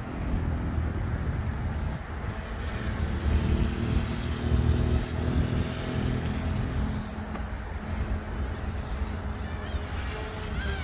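OMP Hobby M2 V2 electric RC helicopter in flight: steady beat of the rotor blades with a motor whine, a little louder in the middle.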